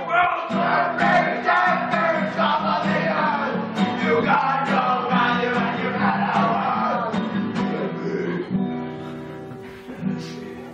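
A song sung live, with voices over steady instrumental backing, growing quieter over the last couple of seconds.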